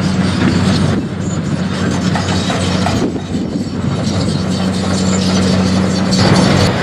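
Diesel excavators working a demolition site: a steady low engine drone with irregular clanking and rattling over it.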